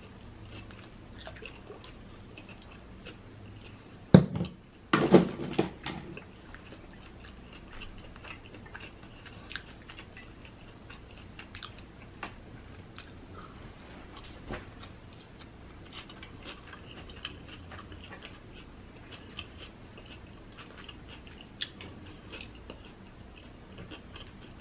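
A person chewing birria tacos close to the microphone, with soft wet mouth sounds and small crunches of fried tortilla. There is a sharp knock about four seconds in and a louder stretch just after it.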